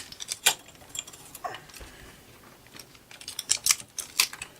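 Irregular light clicks and crackles of hands handling a roll of clear tape and a paper booklet, getting busier near the end.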